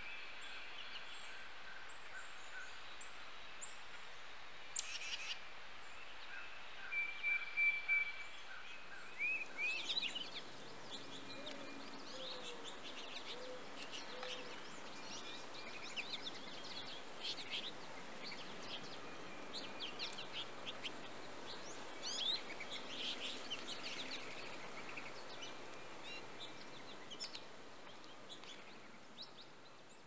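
Small songbirds calling over a steady outdoor hiss. There are a few clear high whistled notes at first, then from about ten seconds in a busy twittering of many short, quick high chirps that thins out near the end.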